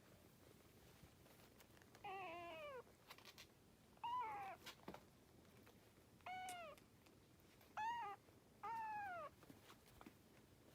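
Kitten meowing five times, each meow a short high call that falls in pitch, with pauses of one to two seconds between them.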